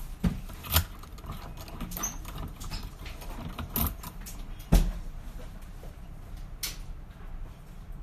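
Small metallic clicks and scrapes of a key being worked in and drawn out of a brass Kwikset-type pin-tumbler lock cylinder, then a flat pick tool slid into the keyway. The clicks are irregular, and the sharpest comes a little past the middle.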